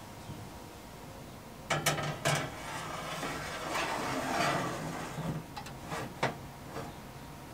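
Wire oven rack rattling and scraping on its metal runners as it is slid into a kitchen oven, with a few sharp metal clanks as it is handled and set in place.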